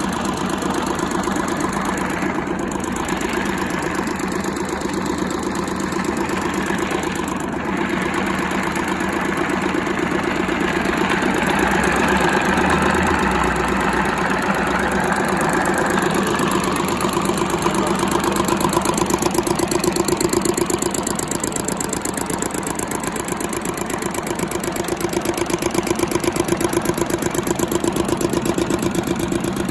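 Güldner Lanova GL7 diesel engine of a 1942–43 prototype tractor running steadily, with its firing strokes coming in an even rhythm. It gets a little louder a few times along the way.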